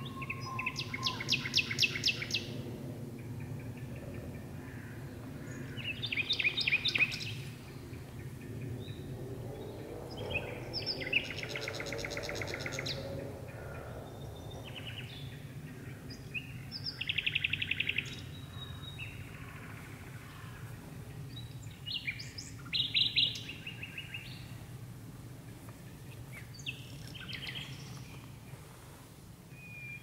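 Nightingale singing: about six separate phrases of fast repeated notes, each a second or two long, with pauses of a few seconds between them. A steady low hum of distant traffic lies underneath.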